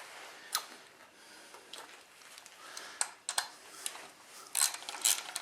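Irregular light metallic clicks and clinks as the rear brake rotor's Allen-head mounting bolts are backed out with a 6 mm hex socket and handled, the loudest few near the end.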